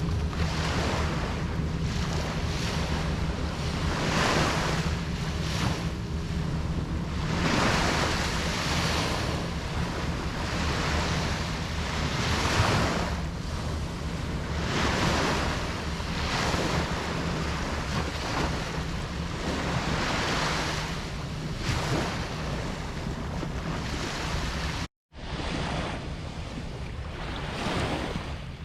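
Ocean waves washing in and breaking, one swell of surf after another every couple of seconds, over a steady low rumble of wind on the microphone. About 25 seconds in the sound cuts out for a split second, then carries on.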